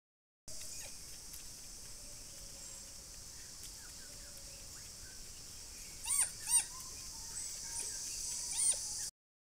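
Forest ambience with a steady high insect-like drone. A few short, arching whistled animal calls stand out: two loud ones in quick succession about six seconds in and another near the end.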